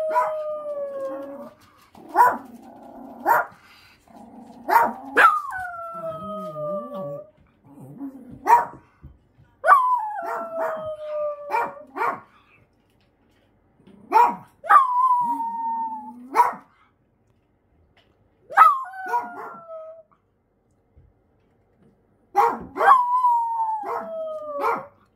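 Senior wire-haired miniature dachshund howling over and over: about six howls, each opening with a sharp yelp and sliding down in pitch, with short yips between. The howling is a change from its old barking, which the owners put down to anxiety, loneliness and fear at being left behind as its hearing and sight fail with a brain tumour.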